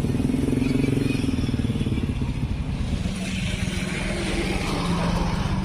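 Motorcycle engines running close by, with a swell of road noise from about three seconds in.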